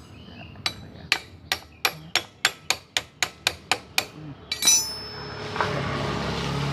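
A hammer tapping a Yamaha Mio M3 final-drive gear case to knock the cover loose: about a dozen quick, even taps, roughly three a second, then one louder knock. After that a steady low hum sets in.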